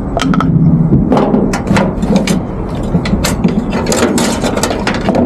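Ginger being pounded in a small metal mortar with a pestle: a run of irregular knocks and clinks over a steady low hum.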